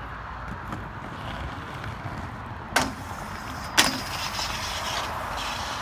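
USD Aeon 60 aggressive inline skates rolling on pavement, with two sharp clacks about a second apart near the middle. The second is the skate landing on a metal rail, followed by a high-pitched scrape of the skate grinding along the rail.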